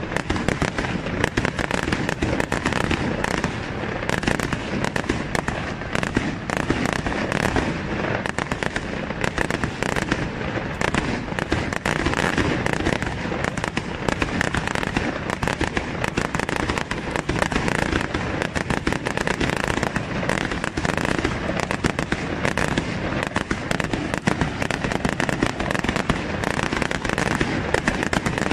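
Aerial fireworks bursting in quick succession: a dense, unbroken run of sharp bangs with no pause.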